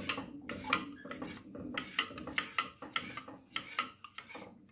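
A hand squelching and sloshing runny batter in a glass bowl, with repeated wet splats and light knocks against the glass, about three a second.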